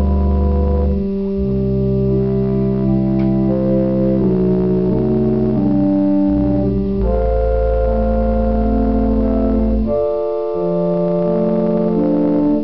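Organ played with both hands: sustained chords over long-held low bass notes, the harmony changing every second or two.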